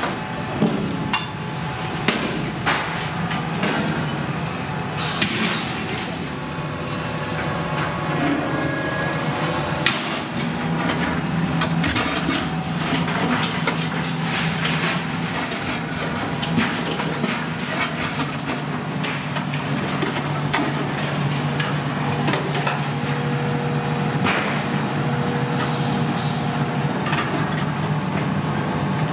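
A high-reach demolition excavator's diesel engine runs steadily under load, with repeated crunching, clanking and scraping of steel as its jaw attachment tears open a silo and debris falls.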